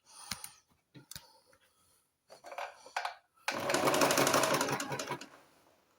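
Domestic sewing machine stitching in one burst of just under two seconds, a fast even run of needle strokes, after a few light clicks of handling.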